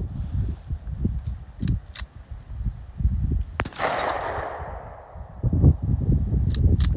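Several gunshots at irregular intervals, sharp cracks, one about three and a half seconds in trailing off in an echo, over low rumbling.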